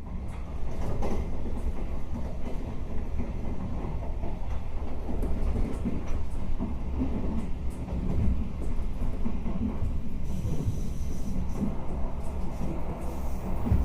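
Steady low rumble of a moving vehicle, with scattered clicks and rattles throughout.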